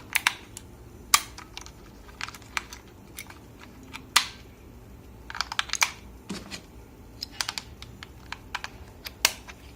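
Irregular plastic clicks and taps from a small infrared remote control being handled as two AAA batteries are fitted into its battery compartment and the cover snapped shut.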